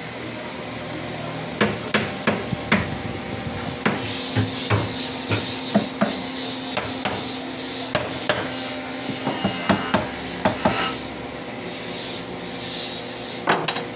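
A series of irregular sharp knocks on wood, as from hand tools such as a hammer, during cabinet work. There are about twenty knocks between about a second and a half in and eleven seconds, then one more near the end, over a steady machine hum.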